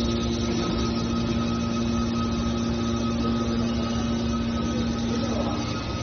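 Hydraulic aluminium baler running steadily, its pump unit giving a constant hum with a steady whine over it; the hum eases slightly near the end.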